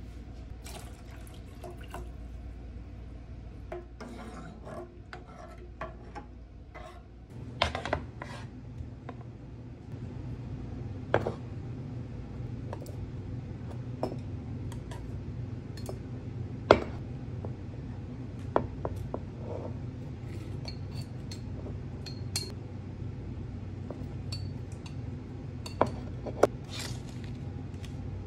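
Glass jars being handled on a cutting board and packed with cabbage: scattered sharp clinks and knocks, about eight of them, over a steady low kitchen hum.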